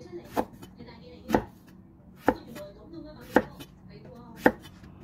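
Cleaver chopping a long purple eggplant into chunks on a wooden chopping board: five sharp knocks of the blade striking the board, about one a second.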